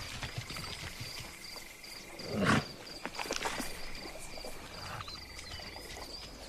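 One short, loud animal call about two and a half seconds in, over a high chirping that repeats evenly about three times a second, like insects calling.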